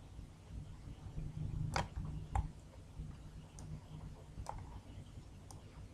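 About five scattered, faint computer mouse clicks over a low steady hum.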